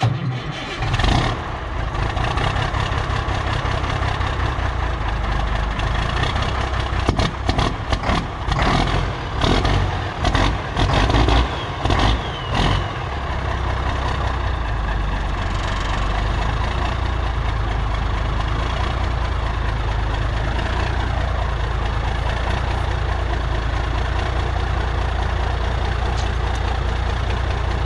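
1990 Mack R-model dump truck's diesel engine starting up and being revved unevenly for the first dozen seconds or so. It then settles into a steady idle.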